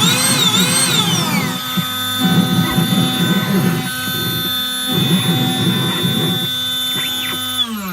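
CNC engraver running: a steady spindle whine, with stepper-motor tones gliding up and down as the head moves and a choppy low sound of cutting into a billiard cue. Near the end the spindle winds down, its pitch falling as it stops.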